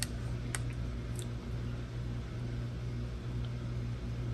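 Steady low hum with a faint hiss, with a few faint ticks in the first second or so.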